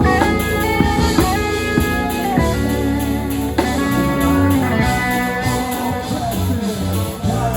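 Instrumental music with guitar and bass and no singing.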